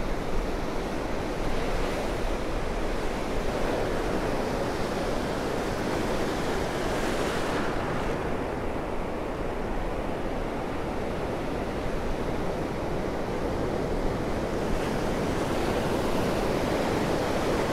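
Ocean surf washing in the shallows, surging louder about seven seconds in and again near the end.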